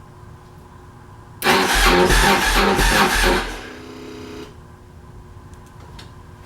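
Yamaha Road Star's air-cooled V-twin being cranked over on the electric starter: a loud burst of uneven low thumps starting about a second and a half in, lasting about two seconds, then dying away without the engine staying running.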